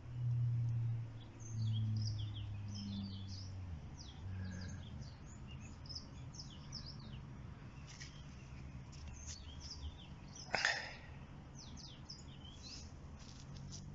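Outdoor ambience of small birds chirping and singing, with many short high calls throughout. A low hum runs for the first few seconds, and a single sharp knock comes about ten seconds in.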